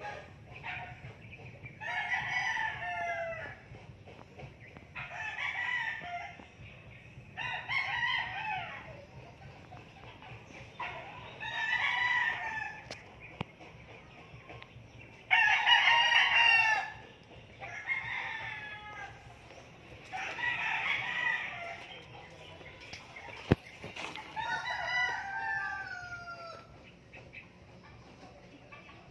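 Roosters crowing again and again, about eight calls a few seconds apart, the loudest a little past halfway. Under them is a faint steady low hum, and one sharp click comes about three-quarters through.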